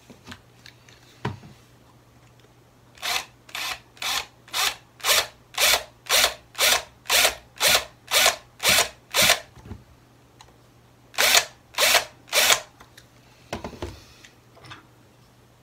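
A thin metal pick scraping in the drilled-out rivet of a diecast toy car. It makes a run of short, even strokes about two a second, then three more after a pause.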